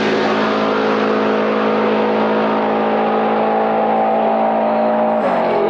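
Two drag-race cars at full throttle running down the strip: a loud, steady engine drone held at one pitch, growing duller as they pull away. Music begins just before the end.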